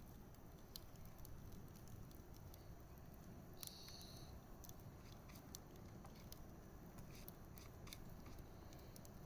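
Wood campfire burning quietly, with scattered sharp crackles and pops over a low steady rumble. About four seconds in, a brief high-pitched sound.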